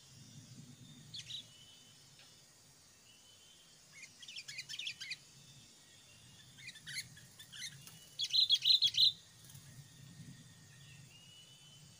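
Sooty-headed bulbuls chirping in quick runs of short calls, the loudest run about three-quarters of the way through, over a faint steady background rumble.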